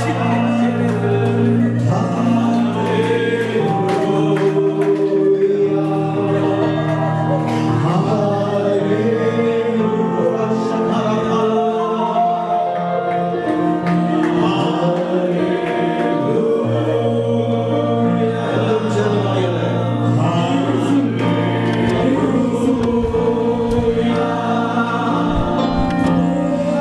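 Christian worship music: a group singing over steady held chords.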